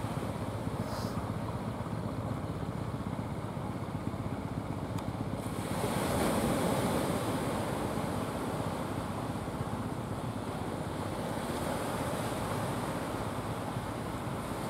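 Sea surf washing steadily, with a wave breaking and swelling louder about six seconds in.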